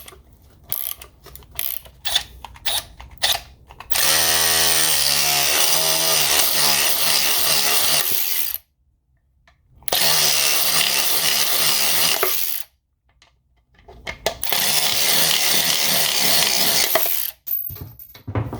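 Cordless 12V ratchet (DeWalt DCF504) driving a lag screw: a few seconds of sharp ratchet clicks from turning it by hand, then the motor running hard in three separate runs with abrupt cuts between them. The pitch of the first run shifts as it starts.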